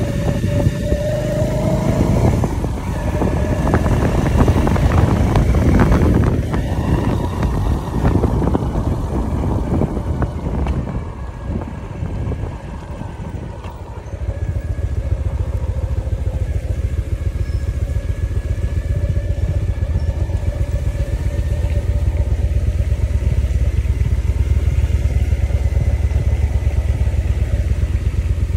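Motorcycle engine running while riding, uneven and rough for the first half, then settling into a steady, even drone from about halfway through.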